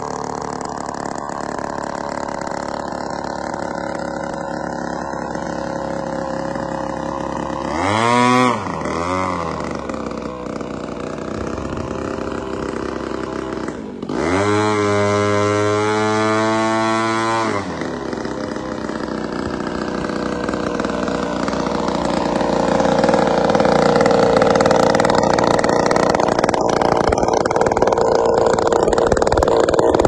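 Zenoah G62 single-cylinder two-stroke gasoline engine in a large RC model airplane, running through a custom straight pipe. It idles steadily, with a quick throttle blip about eight seconds in and a longer run-up held for about three seconds near the middle before settling back. It grows louder over the last third.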